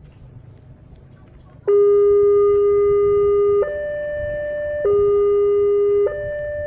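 Railway level crossing warning alarm starting suddenly about two seconds in: a loud electronic two-tone signal that alternates between a low tone and a higher tone, switching roughly every second and a bit. It signals that the crossing is closing for an approaching train.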